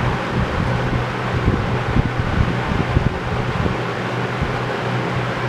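Toastmaster model 4437 box fan running steadily: a rush of moving air over a low motor hum, with scattered low thuds of air buffeting the microphone.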